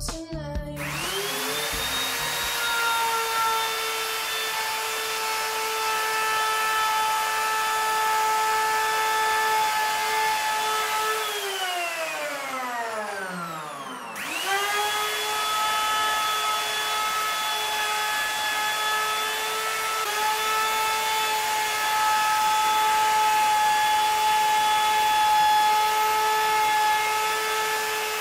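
Handheld electric router running at a steady high whine while it is worked across plywood decking to smooth the board joints. It spins up about a second in, is switched off and winds down about eleven seconds in, then is switched back on and spins up to full speed again just after fourteen seconds.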